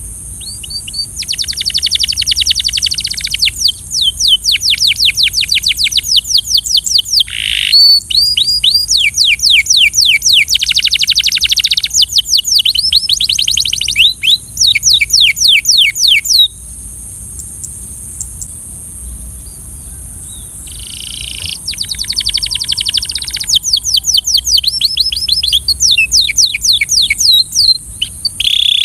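Canary singing: rapid trills of repeated down-sweeping notes, phrase after phrase, with a pause of about four seconds past the middle before the song resumes.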